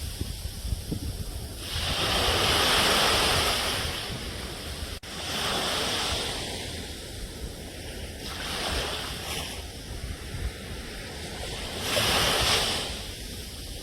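Ocean surf: waves breaking and washing in, rising and falling in four swells over a steady low rumble. There is a momentary drop-out about five seconds in.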